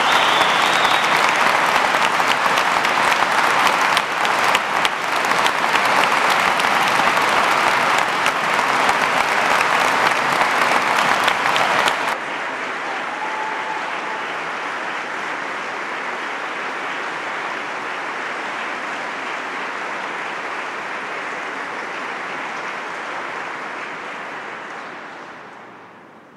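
Large crowd applauding, dense, sustained clapping. About halfway through it drops abruptly to a softer, duller level, then fades out near the end.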